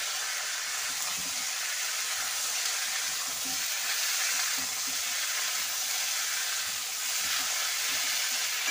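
Potato, broccoli and green peas sizzling as they fry in hot oil in a kadai, stirred and turned with a metal spatula. The sizzle is steady.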